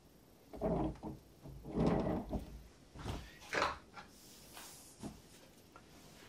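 Handling noise as another weight is set onto the loaded MDF bridge: several soft knocks and rustles, the loudest about two seconds in, with a knitted sleeve brushing close past the microphone.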